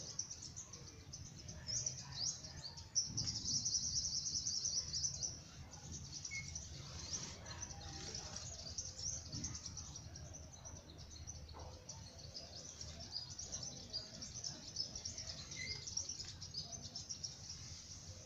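Small birds chirping rapidly and continuously, loudest about three to five seconds in, over a low steady background rumble.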